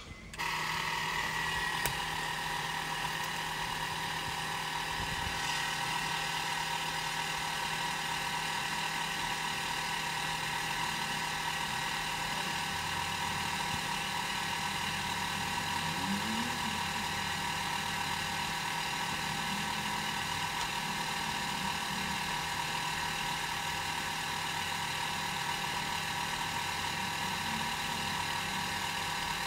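Motor-driven potter's wheel running at a constant speed: a steady motor hum and whir that starts just after the opening and holds unchanged.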